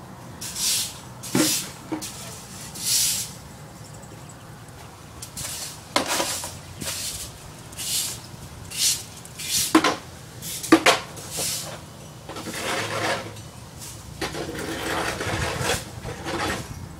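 Hand tools and metal disc-brake parts being worked during the teardown of a minivan's front brake: repeated short scratchy bursts, with several sharp metallic knocks among them.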